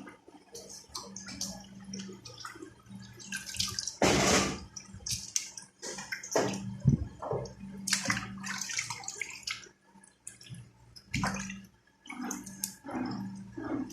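Water splashing and dripping in short, irregular bursts as an octopus is washed and handled in water, over a steady low hum.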